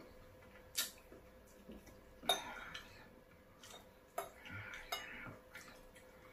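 A spoon clinking and scraping against a porcelain bowl as food is scooped up: a few sharp clinks, the loudest a little past two seconds in.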